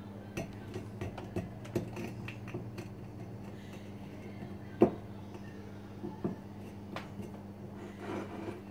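Small metallic clicks and scrapes of a twin-blade (Ah-So) cork puller being worked down between an old cork and the glass bottle neck, with one sharper click about five seconds in. Near the end comes a brief rubbing as the cork is eased up the neck. A steady low hum runs underneath.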